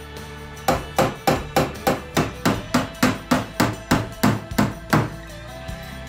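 Ball-peen hammer beating the sheet-steel patch panel on a Jeep Wrangler YJ fender: about fifteen quick, even blows, roughly three a second, starting about a second in and stopping a second before the end. Background music plays underneath.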